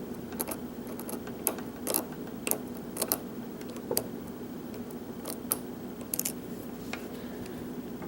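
Irregular small metallic clicks and scrapes of a lock pick working the pins of a Euro cylinder lock held under tension, over a steady low hum.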